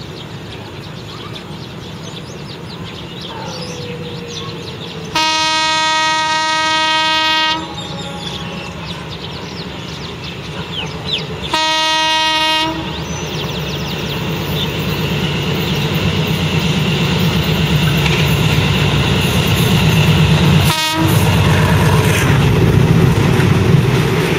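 Alsthom diesel locomotive hauling a rapid train as it approaches and passes: its horn sounds one long blast of about two seconds, then a shorter one a few seconds later, while the rumble of the engine and wheels grows steadily louder as the train draws near.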